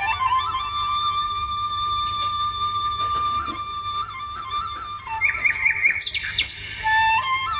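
Background music on a flute: one long held note with small ornaments, then a quick trill and a few short notes near the end, over a steady low drone.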